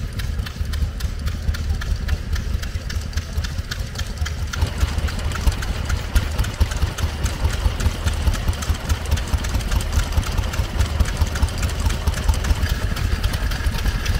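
Vintage stationary engine running with a steady, regular beat; the sound grows fuller about four and a half seconds in.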